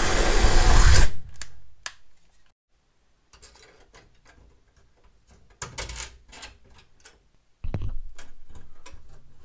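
Cordless drill boring through the sheet-metal inner door panel, stopping about a second in. Then scattered metallic clicks and handling noises as bolts are fitted through a steel reinforcement plate, with a louder stretch of handling late on.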